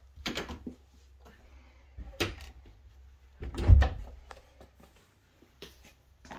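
A few short knocks and bumps, the loudest a deep thud about three and a half seconds in.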